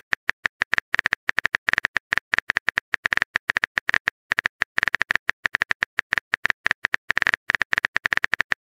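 Keyboard-click sound effect of a texting-story app, a rapid, irregular run of short sharp ticks as a message is typed out letter by letter.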